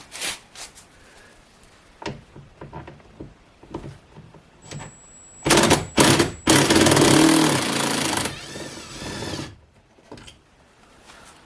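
Handling clicks and knocks on the door trim, then about five and a half seconds in a handheld power driver runs in a few short bursts and then one longer run of about two seconds before trailing off, backing out the door panel's Torx screws.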